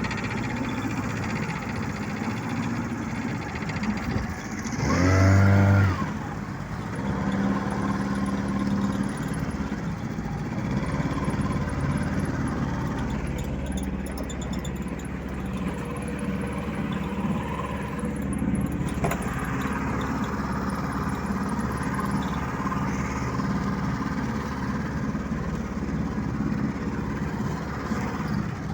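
Vikhr two-stroke outboard motor running under test, revved up sharply and briefly about five seconds in, then running steadily.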